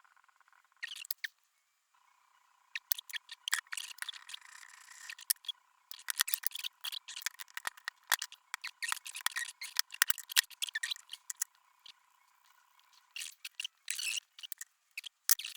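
Quick scraping and clicking of tools against the metal parts of a lathe chuck as old, dissolved lithium grease is cleaned out of it, in busy spells with short pauses. A faint steady tone runs underneath for most of it.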